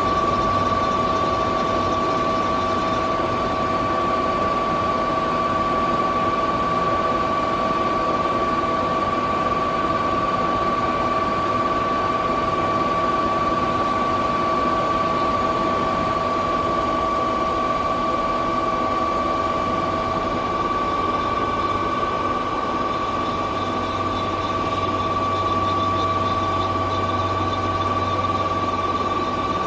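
Star SB-20R Type G Swiss-type CNC automatic lathe running, a steady whine over a constant mechanical noise. A low hum joins in during the last third.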